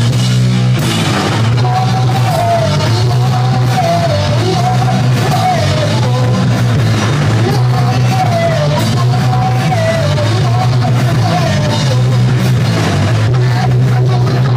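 Live punk rock band playing loud: electric guitars, bass and drum kit, with a vocal wavering over it for much of the time.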